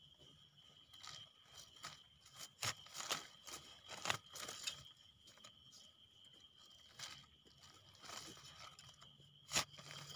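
Faint rustling, crunching and small snaps of termite mushrooms being plucked by hand from forest soil among dry leaves, with one sharper snap near the end. A steady high insect trill runs underneath.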